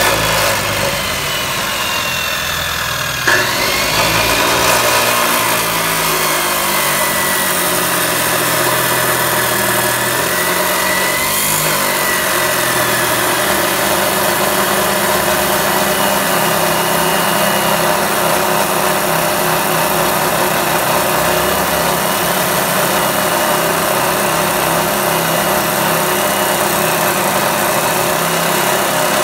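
14-inch abrasive chop saw with a red cut-off wheel spinning, then about three seconds in the wheel bites into a steel piece held in the vice and grinds steadily through it, the motor running under load.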